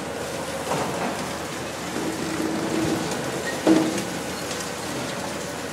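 Demolition excavator's jaws crushing a reinforced-concrete building, with a steady hiss of crumbling debris and dust-suppression water spray and a sharp crunch about three and a half seconds in.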